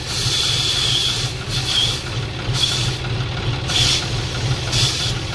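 Air hissing out of a John Deere tractor's rear tyre valve in several short bursts as the valve is pressed and released to lower the tyre pressure, over a tractor engine idling steadily.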